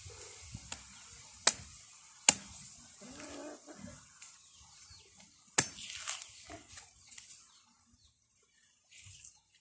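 Bolo knife chopping the hands of ripe saba bananas off the stalk: a few sharp strikes, the loudest about a second and a half, two seconds and five and a half seconds in.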